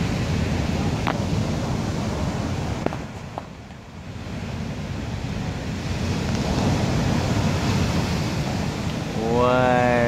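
Heavy ocean surf: big waves breaking and white water rushing up the shore in a steady roar that drops away briefly about three to four seconds in and builds again. Near the end a man calls out a drawn-out "What?"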